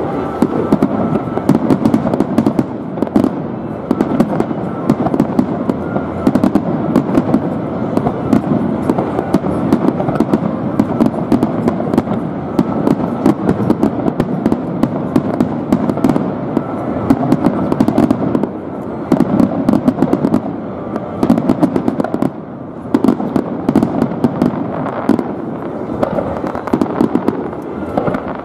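Fireworks display: a dense, continuous barrage of aerial shells bursting, with many rapid bangs and crackles.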